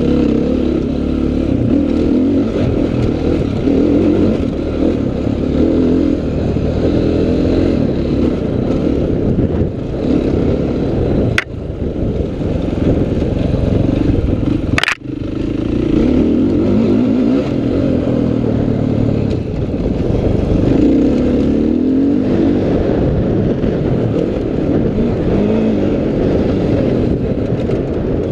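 Dirt bike engine heard close from an onboard camera, revving up and down as the bike is ridden round a motocross track. The sound drops out briefly twice near the middle, each time with a sharp click.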